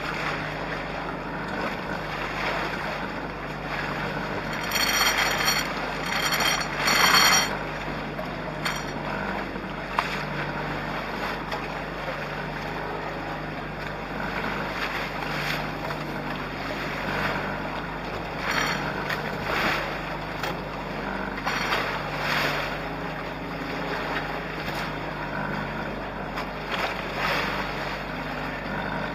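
Water splashing along the hulls of a small trimaran sailing through choppy waves, with wind buffeting the microphone. There are louder splashes about five and seven seconds in.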